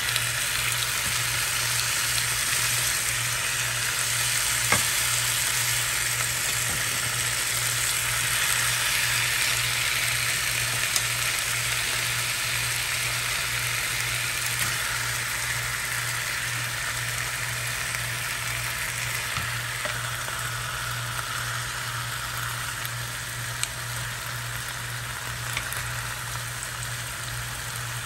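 Chicken drumsticks sizzling in a quarter cup of hot olive oil on a ridged griddle pan: a steady frying hiss that eases slightly toward the end, with a few faint clicks.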